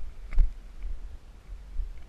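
A sharp click about half a second in, with a fainter one shortly after, over a low rumble of wind or handling noise on the microphone.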